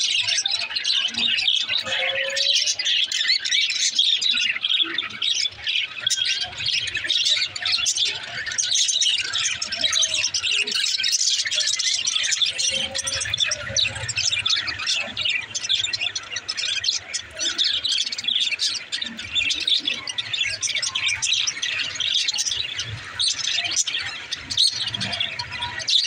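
A flock of budgerigars chattering together: a dense, unbroken warble of many overlapping chirps and squawks.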